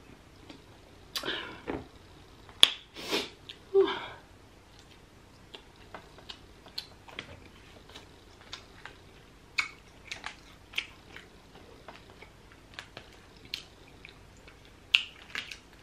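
Close-mic eating sounds: scattered lip smacks and small clicks of chewing and fingers picking at grilled fish on foil. A few louder crackles and knocks in the first four seconds come as a plastic water bottle is capped and set aside.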